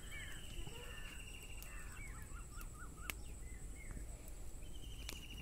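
Small birds calling: short rising-and-falling chirps and a quick run of repeated notes, with a buzzy trill at the start and again near the end. Underneath runs a steady thin high whine, broken by a few sharp clicks.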